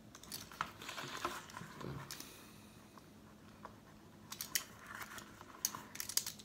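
A small hand blade cutting slowly through a soft rubber RC truck tire, with scattered sharp clicks and rustling as the rubber is bent and handled. It is busiest in the first couple of seconds and again over the last two.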